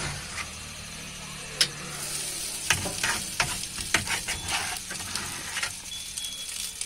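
Handfuls of cooked rice dropped into a hot wok over scrambled egg, sizzling, with scattered sharp knocks and taps of metal and of rice landing.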